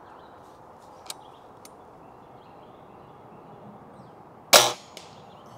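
Daisy Powerline 1101S air rifle firing a single shot, one sharp crack near the end, with birds chirping faintly in the background.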